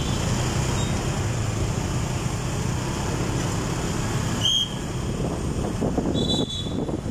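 Street traffic noise: a steady rumble of cars running past, with a few short high chirps over it.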